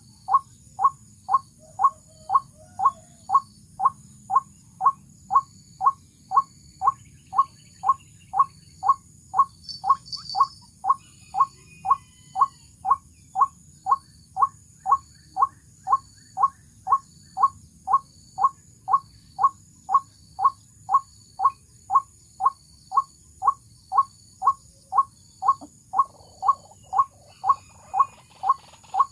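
White-breasted waterhen call, one short note repeated at a very even pace about twice a second, used as a lure for trapping waterhens.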